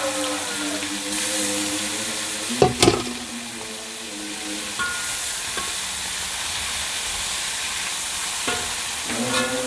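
Sliced bitter melon and dried anchovies sizzling in hot oil in an aluminium wok, a steady hiss. A few sharp metal knocks come about two and a half seconds in. Near the end a metal spatula scrapes and clicks against the wok as the stir-fry is stirred.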